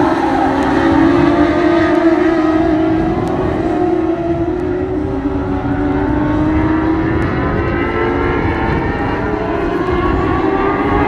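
A pack of dwarf race cars running at speed, their small motorcycle engines held at high revs. Several engine notes overlap, sliding up and down in pitch as the cars pass and go through the turns.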